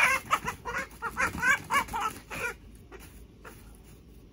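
A rooster squawking in alarm, a rapid run of about nine loud, harsh calls lasting some two and a half seconds, then stopping. The calls come as it is caught by the leg with a wire hook and grabbed.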